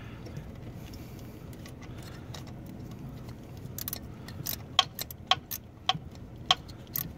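Sharp metallic clicks and clinks of a ratchet and socket being worked on a speed-sensor bolt, irregularly spaced, starting a little over halfway through after a few seconds of low background.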